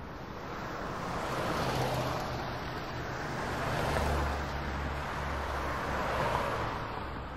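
Road traffic noise: vehicles going by with a low engine hum, swelling and fading three times.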